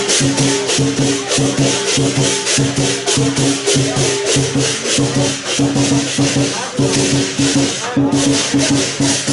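Lion dance percussion, a Chinese drum with clashing cymbals and a gong, playing a fast, loud, driving beat.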